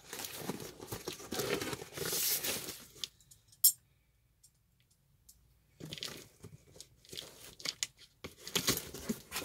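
Packing tape being torn off a cardboard shipping box and the flaps pulled open, a crinkling, tearing rustle. A sharp snap comes about three and a half seconds in, then about two seconds of near silence before the rustling and light clicks of handling the box start again.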